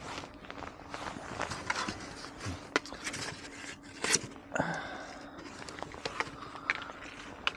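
Handling noise of a foil-faced foam insulation board (Celotex) and fishing line: irregular rustles, scrapes and small clicks as the lure rig's line is wrapped around the board, with one sharper click about four seconds in.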